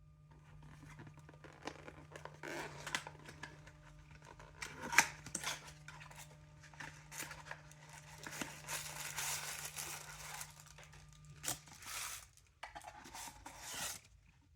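Happy Meal toy packaging being torn open and handled: crinkling and tearing with scattered sharp clicks, the loudest a single snap about five seconds in.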